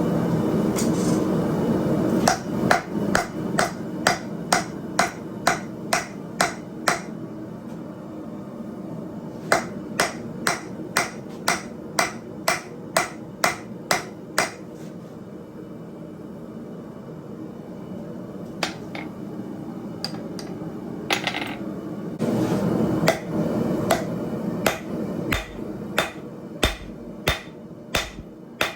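Hand hammer striking hot steel on an anvil in runs of ringing blows, about two a second, with short pauses between runs, as an old jackhammer chisel is forged into a hot cut hardy. A steady low rushing noise runs underneath, louder at the start and again a little past the middle.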